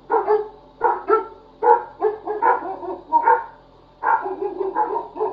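Neighbor's dog barking repeatedly: a string of short barks with brief gaps, then a denser run of barking from about four seconds in, picked up by a doorbell camera's microphone.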